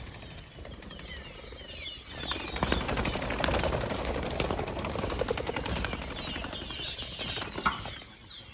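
A flurry of many young pheasants flapping their wings all at once, a dense rapid fluttering that starts about two seconds in and dies down near the end. High cheeping calls from the birds sound throughout.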